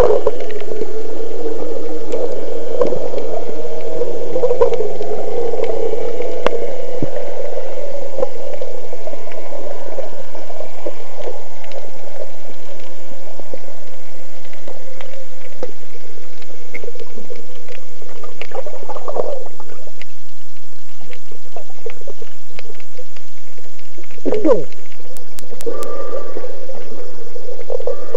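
Underwater sound picked up by a camera held below the sea surface: muffled water swirling and sloshing, with a low humming drone that fades out after about ten seconds and scattered small clicks throughout.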